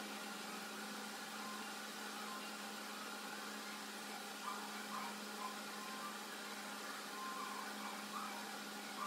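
A steady low hum with an even hiss, like a fan or other running machine in the room. A few faint brief sounds come in about halfway through.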